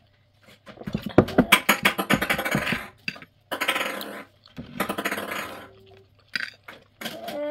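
A fork clinking and scraping against a glass plate while eating, a rapid run of clicks for about two seconds, followed by a few softer bursts of clatter.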